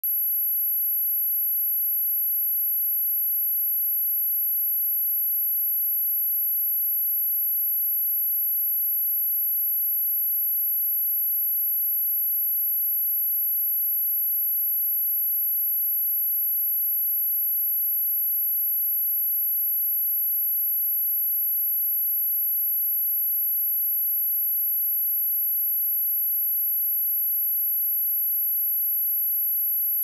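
A pure sine-wave test tone at 11676 Hz, a single very high-pitched steady whine held at a constant level.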